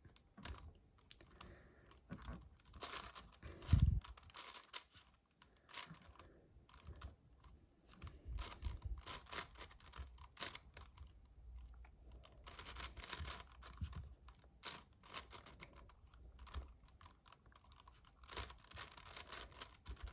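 Magnetic 7x7 Rubik's cube being turned by hand: quick, irregular clicking and clacking of the layers snapping into place, with one dull thump about four seconds in.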